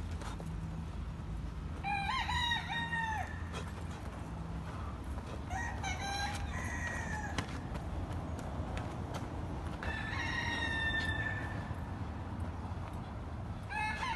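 Roosters crowing, three separate crows a few seconds apart, each lasting about a second or more.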